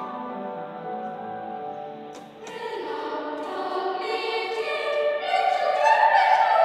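Children's choir singing: a soft phrase fades into a brief pause about two seconds in, then the voices come in again fuller and grow louder toward the end.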